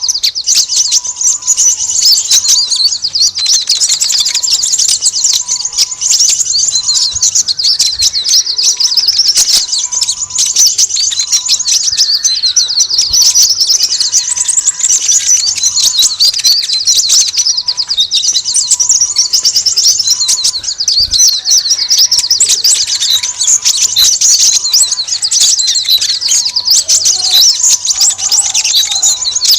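Noisy chorus of many small birds chirping rapidly and without pause: a bird-lure recording of busy small songbirds used to draw in olive-backed sunbirds. A faint short pip repeats steadily underneath.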